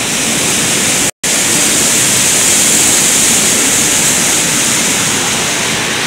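Steady rush of water from a small waterfall and stream tumbling over rocks, a bright, even hiss. It cuts out completely for a moment about a second in.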